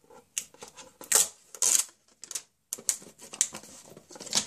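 Plastic packaging being handled and its taped layer peeled off: irregular crackles and rustles in short bursts.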